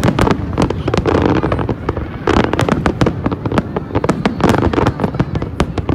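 Fireworks display: a rapid barrage of sharp bangs and booms, many overlapping, with swells of crackle between them.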